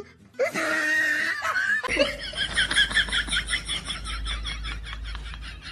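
Human laughter: a voice laughing in the first two seconds, then a rapid high-pitched giggle of about four or five quick notes a second over a low hum.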